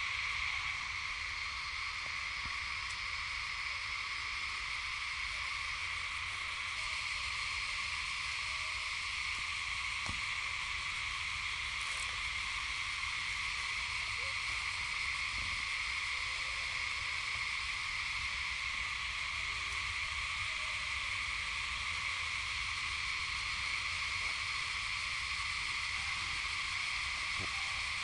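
A steady insect chorus: one continuous, unchanging high drone, over a faint low rumble.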